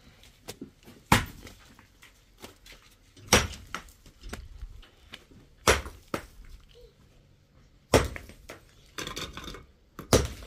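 Sharp knocks, five of them spaced about every two seconds, with lighter clicks and taps between.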